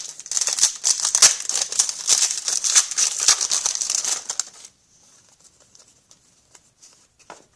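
Trading cards and pack wrappers being handled: dense crinkling and flicking for about four and a half seconds, then only a few faint clicks.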